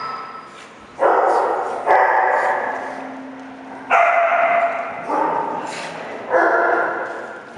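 Small dogs play-fighting, giving five loud, rough growling barks, each starting sharply and trailing off over about a second.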